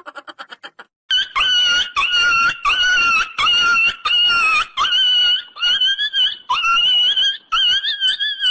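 Ringtone of rapid, high-pitched squealing cries: about a dozen short calls, each about half a second with a quick upward bend at its start, following a brief fast rattle in the first second.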